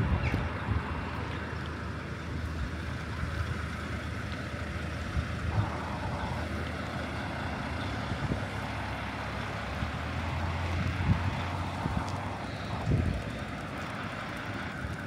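Engine of a large vehicle idling steadily, its low hum swelling for a few seconds past the middle, over street traffic noise, with a couple of sharp knocks in the second half.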